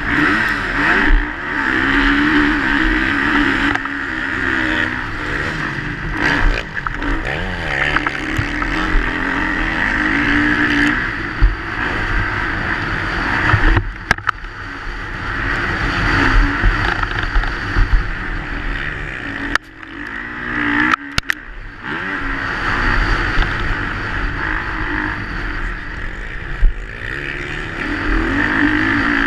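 Motocross bike's engine revving hard and rising and falling in pitch as it is ridden flat out around a dirt track. The engine note drops away briefly twice in the middle.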